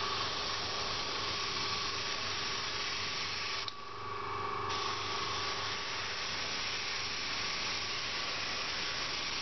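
Airbrush spraying paint in a steady hiss as thick lines are laid down, stopping for about a second partway through before the spray resumes. A faint steady hum lies underneath.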